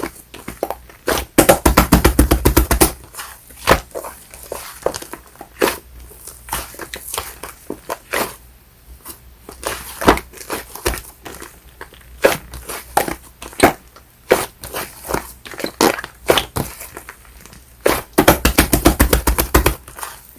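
Fluffy shaving-foam slime being squeezed and poked, giving sticky clicks and small air-pocket pops. There are two runs of rapid crackling, about a second in and again near the end, with scattered single clicks between.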